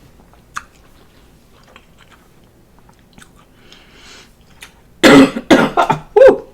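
Faint chewing, then about five seconds in a person coughs hard several times in quick succession, set off by a cayenne-heavy dip sauce.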